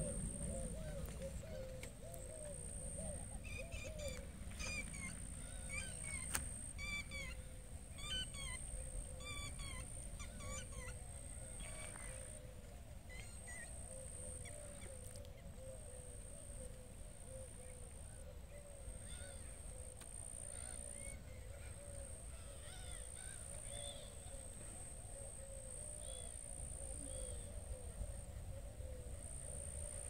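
Waterfowl calling steadily on a lake, a chorus of quick repeated honking calls, with small birds chirping over it for the first dozen seconds. A steady high-pitched whine and low wind rumble on the microphone lie under it.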